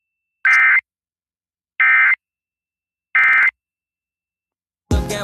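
Emergency Alert System end-of-message signal: three short identical bursts of SAME digital data tones, about a second apart, marking the end of a flash flood warning. Near the end a loud burst of noise starts.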